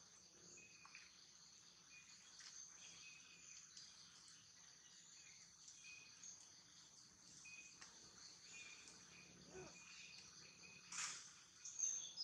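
Faint outdoor insect chirring, high-pitched and steady, with short high chirps scattered through it. Two brief louder sounds come near the end.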